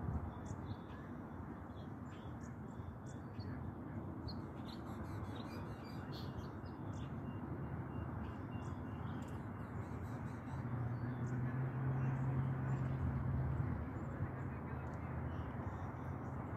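Birds calling, short high chirps over a steady outdoor rush. A low steady drone swells for a few seconds in the second half.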